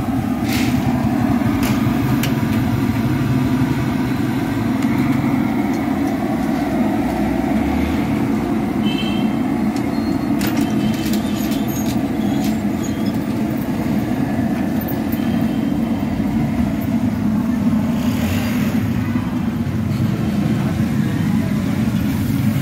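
Steady street noise of passing traffic, with a few brief clicks and knocks.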